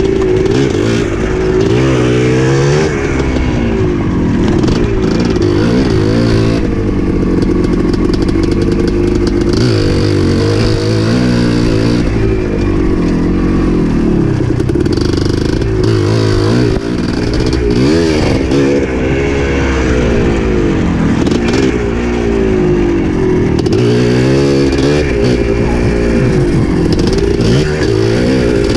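Dirt bike engine running hard along a trail, its pitch rising and falling again and again as the throttle is opened and closed.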